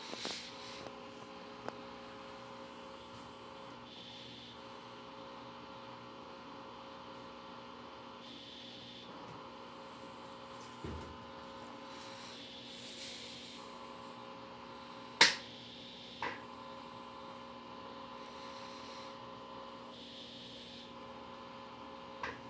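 Electrolux LTC15 top-load washing machine running mid-cycle: a steady motor hum that changes character every couple of seconds, with a few sharp clicks, the loudest about fifteen seconds in.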